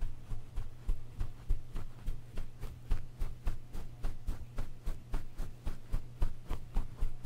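Soft makeup brush swept back and forth over a foam-covered microphone in quick, regular strokes, about four a second, with a steady low hum underneath.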